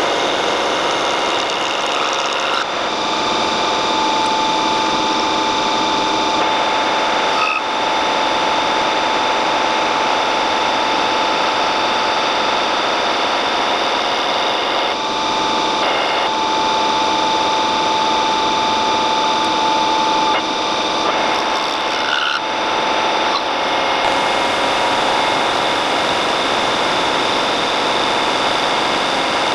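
Metal lathe running and cutting a spinning steel disc, with a steady high tone from about four seconds in until about twenty seconds in, and a few brief dips in the sound.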